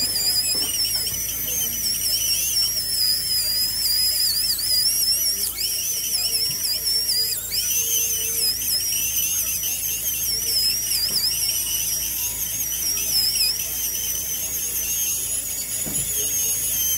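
High-speed dental handpiece whining as its bur drills away the bone over a dog's fractured upper canine, a stage done to loosen the tooth for extraction. The high whine wavers in pitch throughout and dips sharply for a moment about halfway through.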